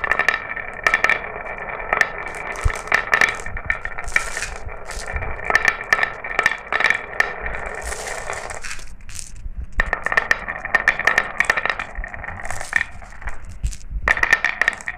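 Glass marbles rolling down a marble run track: a steady rolling rattle with a ringing tone and many sharp clicks and clinks as the marbles strike the track and each other. There is a brief lull in the middle and another near the end.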